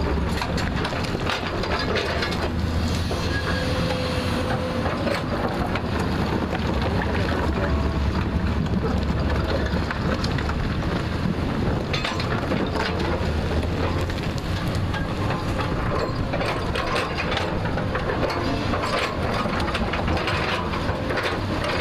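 JCB 3DX backhoe loader's diesel engine running steadily under load, with scattered knocks and clanks as it digs, thickest in the second half.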